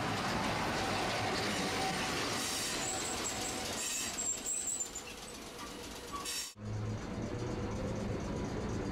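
Streetcar running noise heard from inside the car: the rumble of wheels on rail and the traction motor, with a thin high squeal for a couple of seconds about three seconds in. The sound briefly cuts out about six and a half seconds in and resumes as a steadier low hum.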